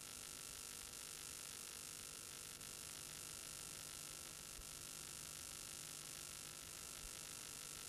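Faint steady hiss with an electrical hum and a thin high whine, and a few faint clicks.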